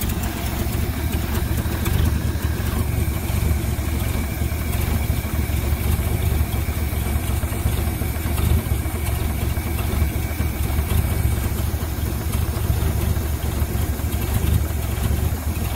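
1969 Ford C700's 330 cubic-inch V8 idling steadily. It is running only on the fuel left in the carburettor floats, with little or no fuel yet coming from the fuel pump into the filter.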